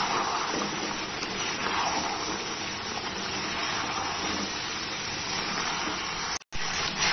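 Chicken pieces sizzling in a steel kadai over a high flame as they are stirred with a metal spatula, the liquid in the pan being fried off. The hiss swells and eases every second or two, and drops out for a moment near the end.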